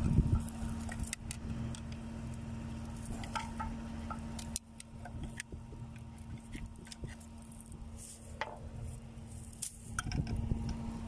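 Scattered light metallic clicks and scrapes of a screwdriver working in a bolt hole on a disc harrow's disc hub, cleaning out a damaged thread. Underneath runs a steady low hum that drops away in the middle and returns near the end.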